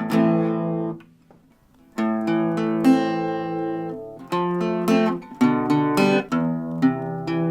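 Enya Nova Go SP1 carbon-fibre acoustic guitar strummed in ringing chords. The playing stops about a second in, then starts again a second later with new chords struck every second or so.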